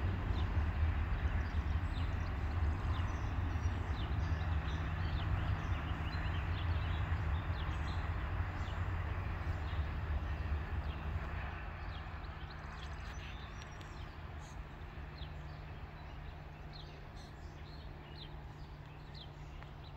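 Low rumble of a freight train rolling away into the distance, fading about halfway through to a faint steady hum.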